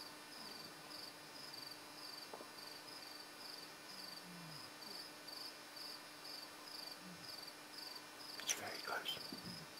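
A cricket chirping faintly, a high chirp repeated at an even pace. A brief louder sound breaks in near the end.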